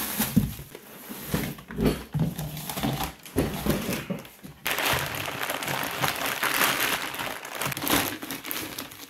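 Plastic packaging bag crinkling and rustling as a rear differential is lifted from its box and unwrapped, with a few dull thumps from handling in the first few seconds; the crinkling turns dense and steady about halfway through.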